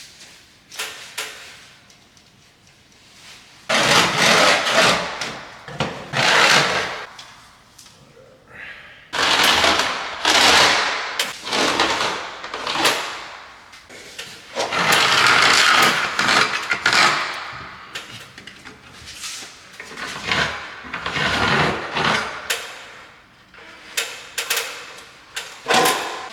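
Drywall being cut out along the marked lines, in repeated noisy stretches of a second or three with short pauses between.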